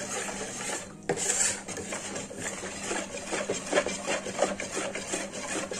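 Wire balloon whisk beating a thin, raw rice-flour batter in a plastic bowl: a rapid, steady scraping and swishing, with a brief break about a second in.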